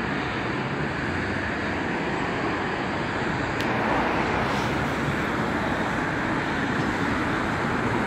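Steady road traffic noise from a busy town centre: a continuous wash of engines and tyres, growing slightly louder about four seconds in.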